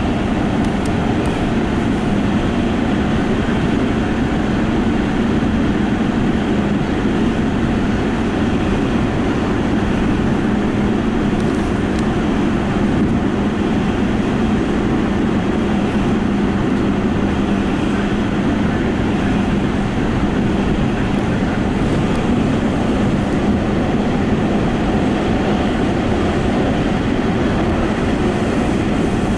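Tokyo Metro Fukutoshin Line train running steadily at speed, heard from inside the train: a constant rumble of wheels on rails with a steady low drone.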